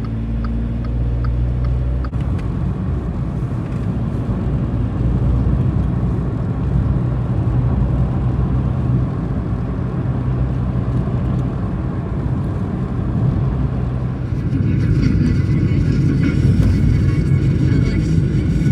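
Steady low rumble of a running road vehicle, with more hiss joining from about fourteen seconds in.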